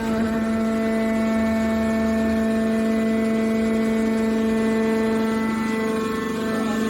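Hydraulic scrap metal baler running, giving a steady machine hum with a clear pitched drone that holds constant.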